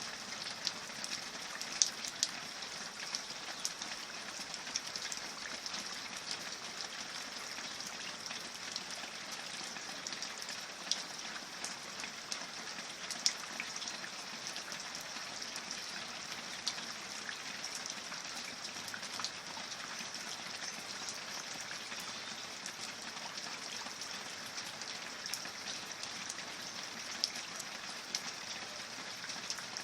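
Steady rain: an even hiss with scattered sharp ticks of individual drops landing.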